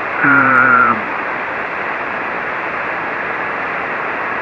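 Steady hiss of band noise from an HF ham radio receiver tuned to a 40-metre single-sideband signal, limited to the narrow voice bandwidth. Near the start there is a brief drawn-out "uhh" from the distant operator's voice.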